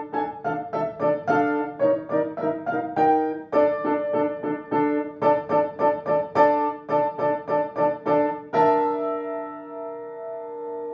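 Upright piano playing a Christmas carol, with notes struck evenly at about three a second. About three-quarters of the way through, a final chord is struck and left to ring, slowly dying away.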